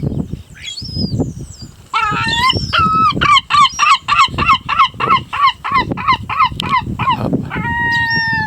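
A gull giving its laughing long call: a rapid series of loud, evenly repeated yelping notes, about three or four a second, ending in a long held note. A low rumble runs underneath.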